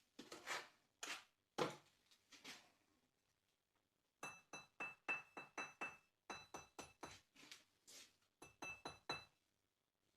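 A wedge brick being set into a brick fireplace arch: a few scrapes and knocks of brick being handled, then a run of quick light taps, about three or four a second, each with a short metallic ring.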